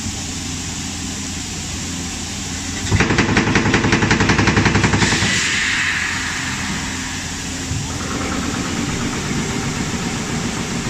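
Air-powered jolt squeeze moulding machine jolting a green-sand mould: a loud, rapid run of knocks lasting about two seconds, compacting the sand in the flask. It ends in a hiss of exhausting compressed air that fades over about two seconds, with a steady machine hum before it and a fainter rhythmic rattle after it.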